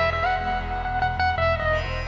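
Background music: a guitar-led instrumental playing a melody over a steady bass line.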